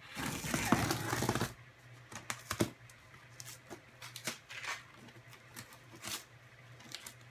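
A utility knife slicing through packing tape and cardboard on a shipping box: one long scraping cut over the first second and a half, then scattered short scrapes and taps of the blade on the cardboard.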